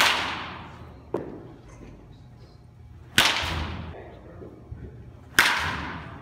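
Baseball bat hitting pitched balls in an indoor batting cage: three sharp cracks, one right at the start and then about three and five seconds in, each ringing out in the hall. A lighter knock sounds about a second in.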